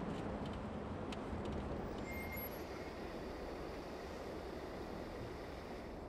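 A UAZ van driving slowly across open ground some way off: a steady engine and tyre rumble that slowly fades.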